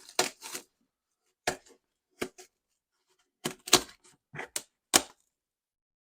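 Tough shipping packaging being opened by hand: a series of sharp snaps and clicks in irregular bursts, loudest near the middle and near the end.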